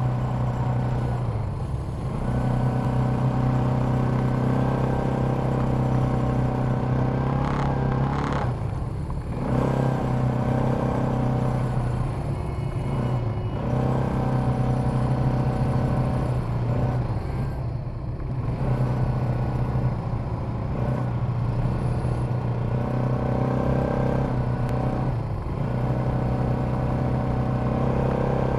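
ATV (quad bike) engine running steadily while being ridden, easing off briefly and picking up again several times as the throttle is let off and reapplied.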